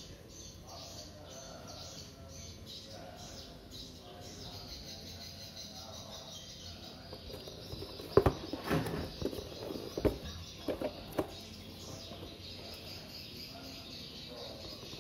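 A cardboard box being handled and turned over, with a handful of sharp knocks and rustles in the middle stretch. Birds chirp faintly in the background.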